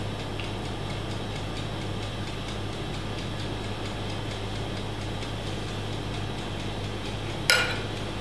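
Steady low hum and room noise while thick batter pours almost silently into foil cups. Near the end, a single sharp clink of a metal spoon against the batter bowl.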